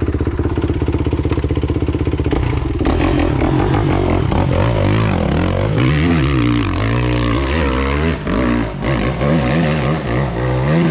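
KTM 250 XC-W two-stroke enduro motorcycle engine running steadily with an even pulse, then revving up and down repeatedly from about three seconds in.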